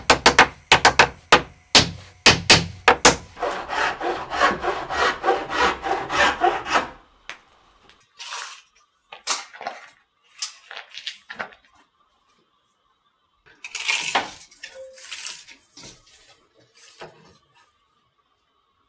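Wood being worked with hand tools: a quick run of sharp knocks, about three a second, then a few seconds of steady rasping through wood, then scattered knocks and scrapes with short pauses.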